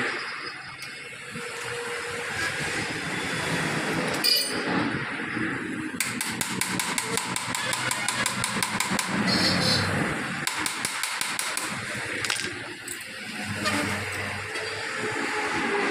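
Tool and metal-part clatter as a kids' bicycle's handlebar and stem are fitted and tightened. In the middle comes a fast, even run of clicks, about six or seven a second, lasting a few seconds and breaking off once.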